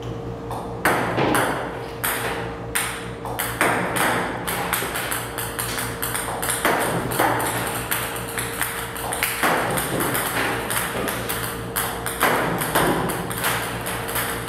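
Table tennis balls shot from a ball-launching robot, clicking as they bounce on the table and hit the net, irregularly about one or two a second, over a steady hum.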